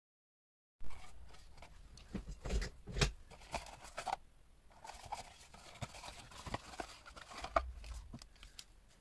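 Hands opening a small cardboard watch box and lifting out a watch on a clear plastic stand: scattered clicks, taps and rustling of cardboard and plastic on a silicone work mat, starting about a second in.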